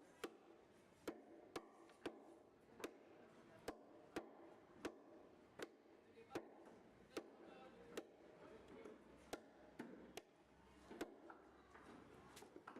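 A knife chopping through red snapper onto a cutting block: a regular series of sharp knocks, about one every three-quarters of a second, with a brief pause about two-thirds of the way through.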